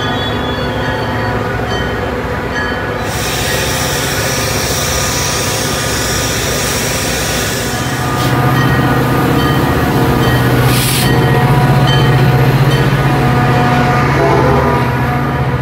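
Metra F40PH diesel-electric locomotive passing at close range with its commuter train, the diesel engine running with a steady low drone over wheel and rail noise. It grows louder about halfway through as the locomotive comes alongside.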